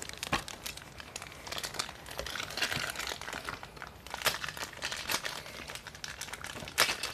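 Clear plastic wrapper of a small toy prize crinkling as it is worked open by hand. A few sharper cracks stand out, one about four seconds in and one near the end.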